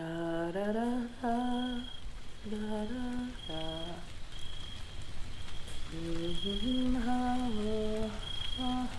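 A single voice humming a slow, simple melody in two short phrases, stepping between a few notes, with a pause of about two seconds between them. Behind it a high chirping repeats throughout, over a rain-like hiss.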